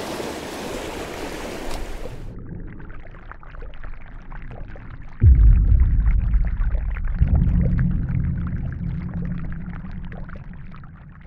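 Wind and open-water noise on a small boat for about two seconds, then a logo sound effect: a low rumble, a sudden deep boom about five seconds in, and a second rumbling swell that slowly fades out near the end.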